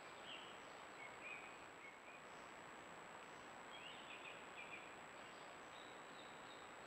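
Faint steady hiss of a camera trap's microphone with a thin steady high tone, and scattered faint short high chirps, a few of them close together near the end.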